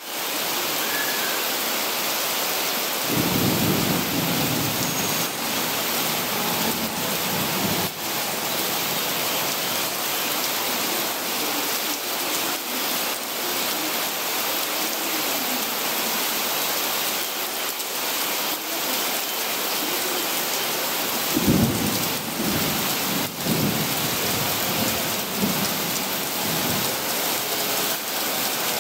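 Torrential rain pouring down onto the tracks and the station roof: a loud, steady downpour hiss. Two deeper low rumbles rise out of it, about 3 seconds in and again about 21 seconds in.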